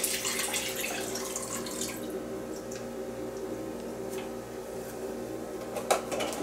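Chicken broth pouring from a carton into a slow cooker crock, a steady splashing stream that softens after about two seconds and stops near the end, with a couple of sharp ticks as the carton is righted.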